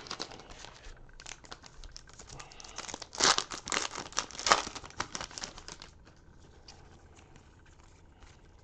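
Plastic wrapper of a baseball card pack being torn open and crinkled, loudest between about three and four and a half seconds in. After about six seconds only faint, light handling of the cards remains.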